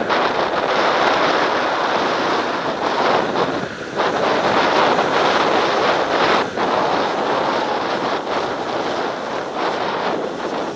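Wind rushing over an action camera's microphone while sliding down a groomed snow slope, mixed with the steady hiss of snow scraping under the rider. It dips briefly twice.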